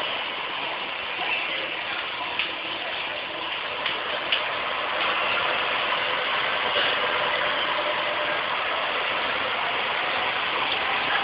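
Steady running of a KiHa 47 diesel railcar's engine idling at a standstill, with a few light clicks over it.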